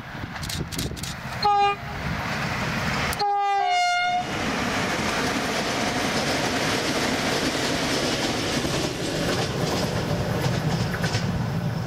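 Passenger train sounding its horn: a short blast about a second and a half in, then a longer blast of two notes, the second slightly lower. Then the loud, steady rumble and rail noise of the train passing close by.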